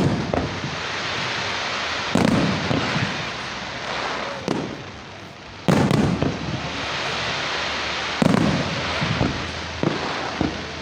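Festive fireworks salute: large shells bursting with deep booms every two to three seconds, three big ones, with smaller cracks in between and a steady hiss in the background.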